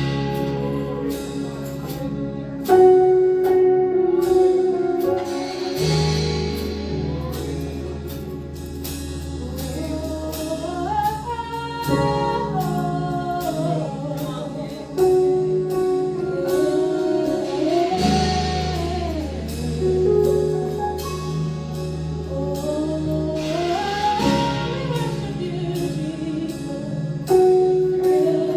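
Gospel worship music: a band with bass, keyboard chords and drums playing while a singer's voice carries a melody with sliding runs.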